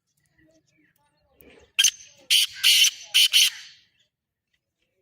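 Black francolin calling: a burst of about five harsh, grating notes in quick succession, starting about two seconds in.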